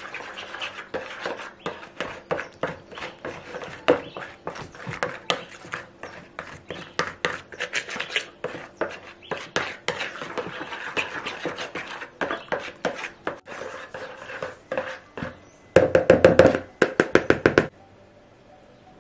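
A bare hand mixing a thick, wet marinade of mayonnaise and sauces in a plastic bowl: rapid, irregular strokes, several a second. Near the end comes a quick run of louder knocks, then it goes quiet.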